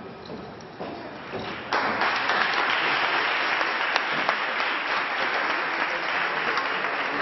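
Audience applauding at the end of a tap dance routine, the clapping swelling suddenly to a full, steady applause about two seconds in.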